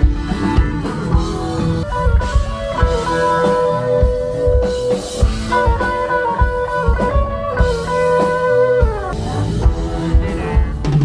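Rock music with guitar over a drum kit; held guitar notes slide down in pitch about nine seconds in.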